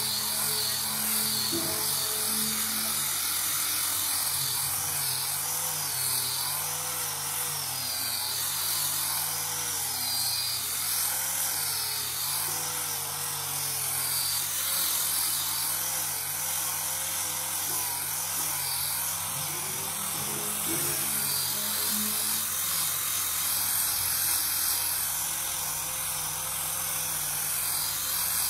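Handheld angle grinder with a sanding disc running at speed, grinding steadily against a wooden surface as it sands, a high-pitched whine and hiss. Background music plays underneath.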